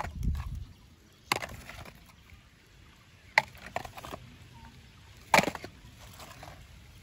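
Hard toy vehicles knocking against one another as they are handled in a muddy pile: a few sharp clacks about two seconds apart.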